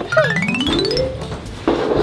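A magical transition sound effect: a quick rising run of chime-like notes over a rising sweep, then a short whoosh near the end.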